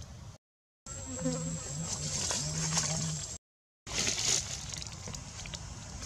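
Insect buzzing in short, broken stretches over a high, steady insect whine, with small scattered clicks. The sound cuts out completely twice, each time for about half a second.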